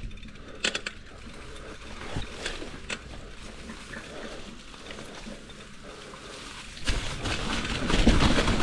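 Mountain bike handled with scattered clicks and rattles at a low level, then about seven seconds in a louder rushing noise begins as the bike rolls down a steep line.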